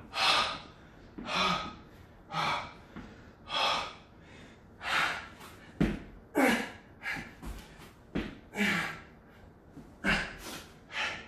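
Heavy, gasping breaths of a man out of breath from burpees, about one a second and coming faster later on, some exhales voiced like grunts. A couple of dull thumps from his hands and feet landing on the exercise mat, about halfway and near the end.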